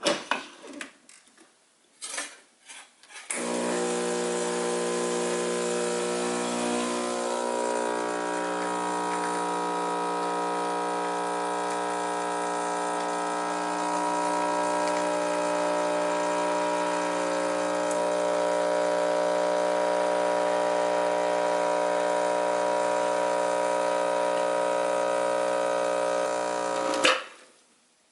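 Gaggia New Baby espresso machine's vibratory pump humming steadily while pulling a shot, starting about three seconds in after a few clicks and knocks and stopping suddenly near the end. The shot runs a little longer in extraction than hoped, the grind not being dialled in.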